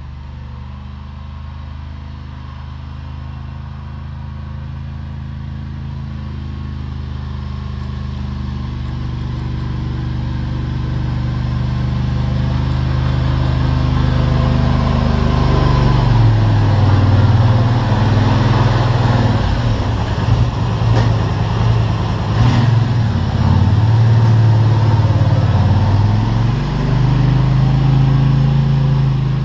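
ATV engine running while the quad plows snow, getting louder as it comes up close, then staying loud, its pitch dropping and rising again several times as it slows, shifts and turns.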